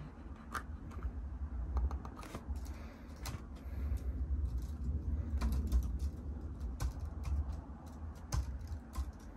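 Typing on a computer keyboard: irregular keystroke clicks.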